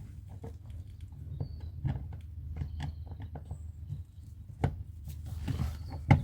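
Scattered light clicks and taps of a screwdriver and hands working at the screws of a car's door panel, with a sharp knock near the end, over a steady low hum.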